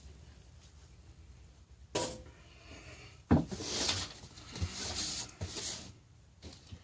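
Knocks and handling noise from barstool parts being moved on a work surface: a knock, then a sharper bang a little after three seconds in, followed by a couple of seconds of rubbing and shuffling with a few small knocks.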